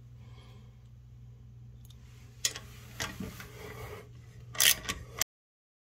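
Socket ratchet wrench being worked on a hex bolt through a metal bracket to loosen it: a few short metallic clicks and scrapes, the loudest pair near the end, over a steady low hum. The sound cuts off abruptly about five seconds in.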